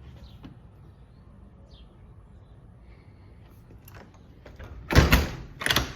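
Low steady background rumble, then two loud knocks about five seconds in, a little over half a second apart.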